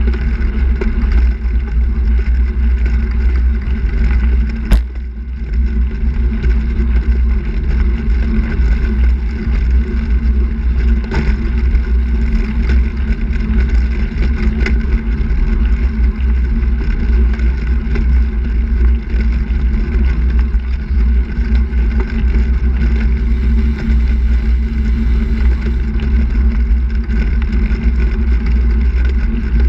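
Wind buffeting the microphone of a handbike-mounted camera together with tyre and road noise on asphalt, a loud, steady rumble. There is one sharp click about five seconds in.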